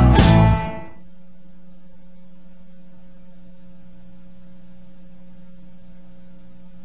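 Background music ends within the first second, leaving a steady low electrical hum, like mains hum, in the gap between songs.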